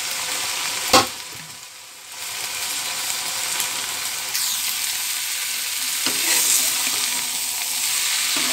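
Flat beans and garlic sizzling in oil in a small iron karahi, with a sharp clank about a second in as the cover comes off. The sizzle drops for a moment, then builds up again and is loudest in the second half, as a metal spatula stirs the beans.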